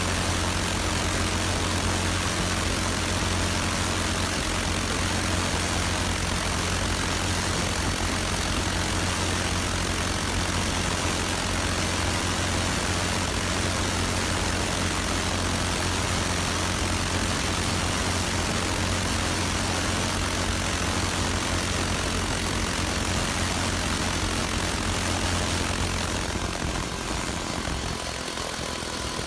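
Internal combustion engine running steadily, a low hum under a loud, even hiss. About 26 seconds in, the hum drops away and the hiss thins.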